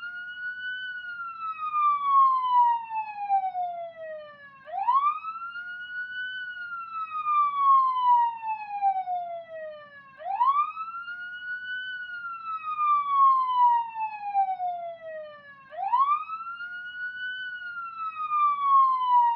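Police siren sounding a slow wail. Each cycle climbs quickly for about a second, then falls slowly for about four seconds, and starts again about every five and a half seconds.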